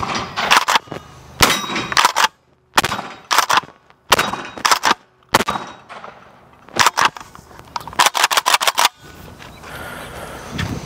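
A string of 12-gauge shots from a Kel-Tec KS7 pump-action bullpup shotgun, with the slide racked between them. The shots come in irregular groups, with a rapid cluster of sharp reports about eight seconds in.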